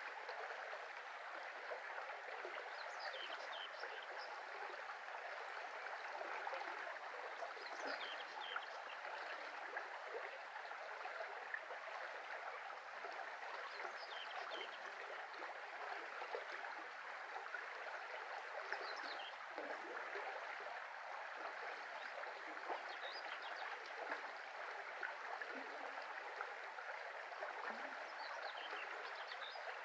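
Shallow brook flowing over stones, a steady rushing with small bubbling notes. A bird's short high chirping phrase comes in faintly every few seconds.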